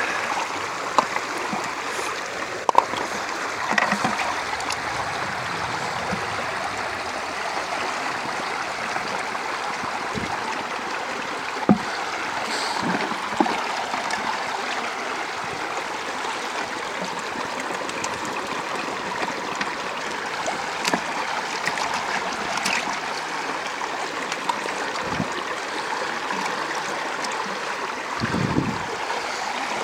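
Shallow river water running steadily over rocks and through a small gold-prospecting sluice box, with a few light knocks now and then.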